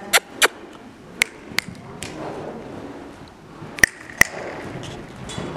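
A person clicking their tongue in quick pairs, three times over, to send a horse forward.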